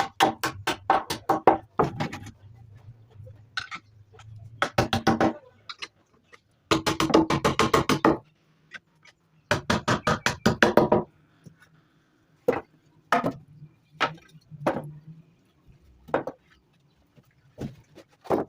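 Rapid runs of sharp knocks or taps, several strokes a second, coming in bursts, with single taps in between, over a faint low steady hum.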